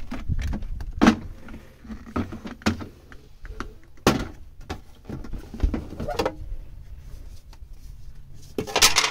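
Irregular knocks, thuds and bumps of things being handled in a small boat cabin, with a louder clatter near the end.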